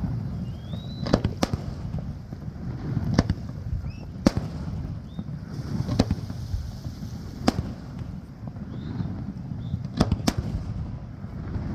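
Aerial fireworks shells bursting: about eight sharp reports spaced a second or two apart, a few of them in quick pairs, over a steady low rumble.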